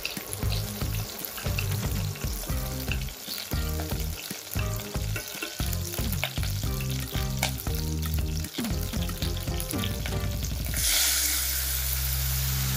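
Scallions sizzling in hot oil in a stainless steel saucepan, stirred with wooden chopsticks, with small ticks and crackles. About eleven seconds in, chopped tomatoes go into the pan and the sizzle jumps to a much louder, steady hiss.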